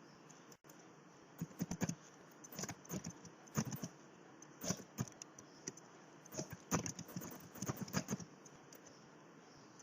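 Irregular short clicks and rattles coming in loose clusters over a faint steady background.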